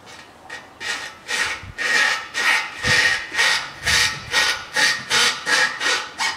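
A new rubber exhaust-muffler hanger being worked back and forth onto the steel hanger pin of a replacement muffler pipe, rubbing with a squeak. It comes as quick repeated strokes, about two and a half a second, starting about half a second in.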